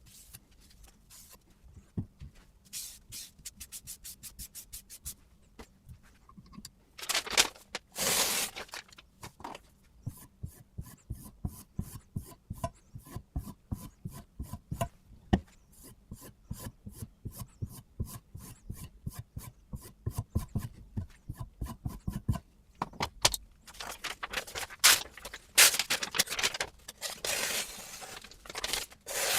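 Sharpening stone on a guided fixed-angle knife sharpener, stroked along a kitchen knife's edge in a rapid run of short scraping strokes, with a few longer, louder passes.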